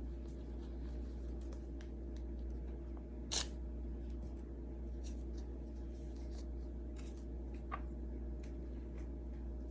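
Faint clicks and rustles of small injection supplies (syringes, caps, vials, wrappers) being handled on a table, with one sharp click about three and a half seconds in and a smaller one near the end. A steady low hum sits under it all.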